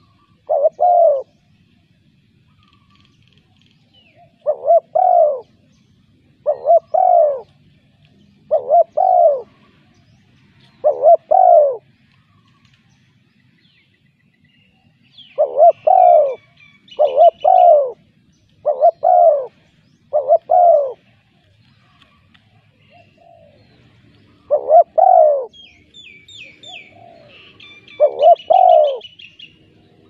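Spotted dove cooing: short phrases of two or three low, slightly falling coos, repeated every few seconds with pauses between. Small birds twitter faintly and higher-pitched now and then.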